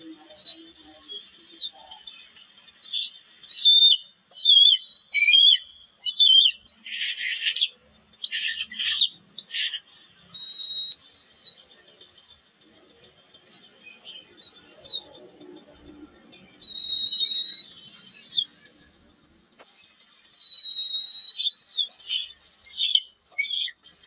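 Eagle chicks calling in the nest: a series of high, thin whistled peeps that rise and fall in pitch, with a few harsher squeals about seven to ten seconds in.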